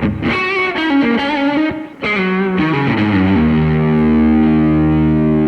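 Distorted electric guitar playing a short lead phrase with bent notes, then a held chord that rings on steadily.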